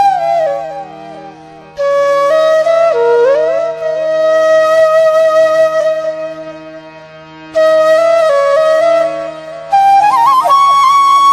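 Background music: a flute playing a melody with sliding, ornamented notes over a steady low drone, in phrases that fade away and start again.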